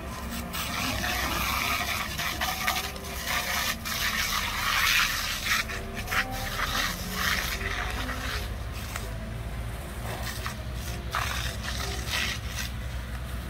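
A wheel loader's diesel engine running with a steady low drone, under a rough, irregular hissing and scraping noise from a fire hose's water jet striking burning hay bales.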